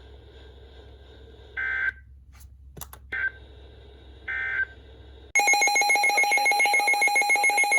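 Emergency-alert radio audio between warnings: a faint hum and hiss broken by three short high chirps of data tone, then, about two-thirds of the way through, a loud electronic alert tone starts, several pitches stacked and pulsing rapidly at roughly eight beats a second.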